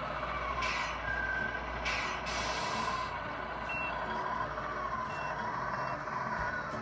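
Electronic sound unit of a Tamiya 1/14 Knight Hauler RC truck sounding its reversing beep over a simulated diesel engine as the model backs up. Two short bursts of hiss come about one and two seconds in.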